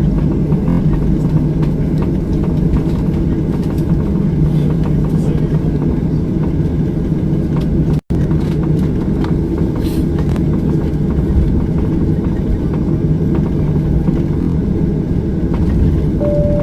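Steady low rumble of an airliner's engines and airflow heard inside the passenger cabin. Right at the end a cabin chime begins with a single steady tone.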